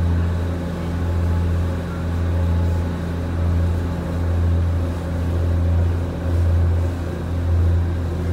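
Boat engine droning steadily, heard inside the wheelhouse while under way, a deep hum that swells and eases about once a second.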